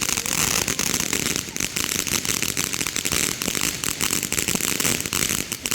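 Fireworks crackling: a dense, rapid run of small sharp pops and snaps.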